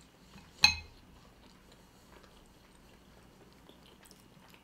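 A single sharp clink of a metal utensil against a dish about half a second in, ringing briefly; after it only faint small clicks of cutlery.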